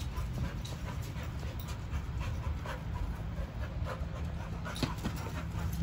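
A dog panting close to the microphone in quick, uneven breaths, over a steady low rumble of wind on the microphone.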